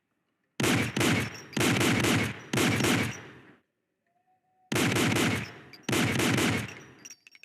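M1911 pistol firing in two quick strings of shots, with a pause of about a second between them. A few faint clicks follow near the end.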